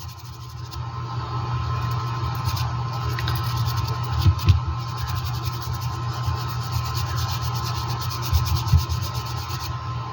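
Hot-air rework station's blower running steadily at full air, drying a water-damaged phone board, with a few soft knocks of handling about four and eight and a half seconds in.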